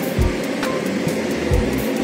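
Background music with held tones and a low recurring beat.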